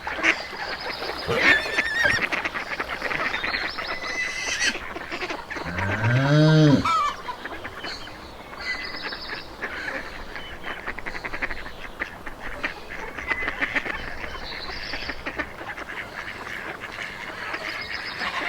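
Domestic geese honking and calling, many short calls overlapping, with one louder, deeper call about six seconds in.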